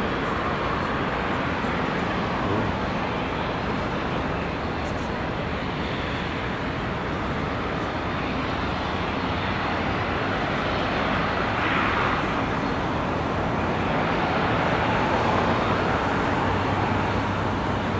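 Steady city traffic noise by the waterfront, with one vehicle swelling past about twelve seconds in and a low steady engine hum coming in near the end.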